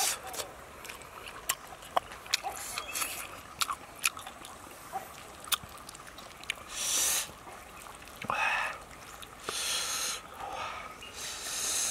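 Close-up eating sounds: many small wet mouth and finger clicks, then four loud, noisy breaths in the second half.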